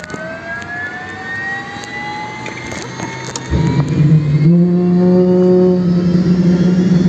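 MD 500 helicopter's turbine engine starting up: a rising whine as the turbine spools up, then about three and a half seconds in a louder, steady low drone joins and steps up in pitch a second later as the main rotor begins to turn.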